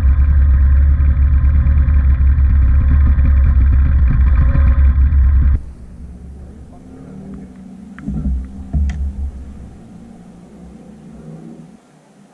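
Outboard motor on an inflatable boat running steadily and loudly. About halfway through it cuts off abruptly to much quieter sound with a few sharp clicks and knocks.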